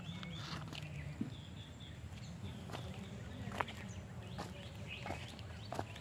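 Outdoor background with birds chirping now and then over a low steady hum, and footsteps at an even walking pace.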